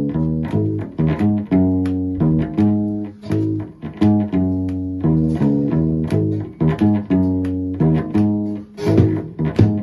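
Instrumental folk music for a sea shanty: a plucked string instrument plays a steady beat of sharply struck notes and chords, each ringing and fading before the next, with no singing.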